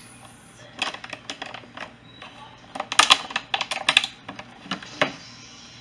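Thin clear plastic sushi clamshell crinkling and clicking under the fingers as a paper label seal is peeled off its lid, in irregular clusters of sharp clicks, busiest about three to four seconds in.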